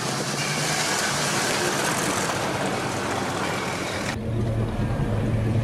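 Late-1970s Ford Ranchero V8 car driving slowly past on gravel, a dense rushing noise of engine and tyres. About four seconds in this gives way abruptly to a steady low engine rumble.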